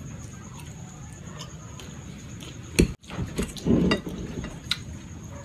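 Eating sounds: a mouthful of fettuccine carbonara being chewed, with a sharp click nearly three seconds in and light clinks of a fork against a ceramic plate.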